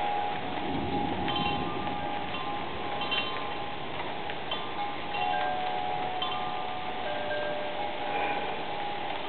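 Wind chimes ringing at several pitches, the tones starting and overlapping over a steady rushing of wind. There is a brief low rumble about a second in.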